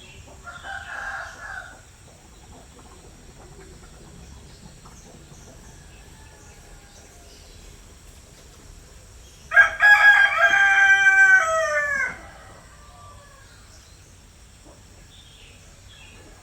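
A rooster crowing once, a loud cock-a-doodle-doo lasting about two and a half seconds, starting about ten seconds in, with its pitch falling away at the end. A shorter, fainter call comes near the start, over a steady faint high-pitched background.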